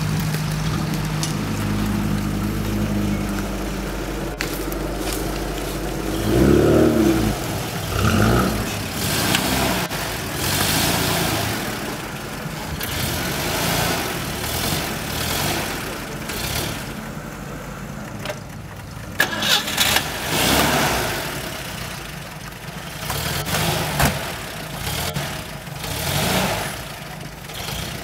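Off-road UAZ 4x4 engine running steadily, then revved in two rising swells about six to eight seconds in. It keeps working under load as the vehicle crawls up out of a deep dirt rut, with a few sharp knocks just before the twenty-second mark.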